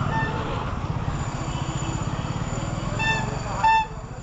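Motor vehicle engine running with a rapid low pulse, heard from the moving vehicle. Two short horn honks come about three seconds in and near the end, the second louder.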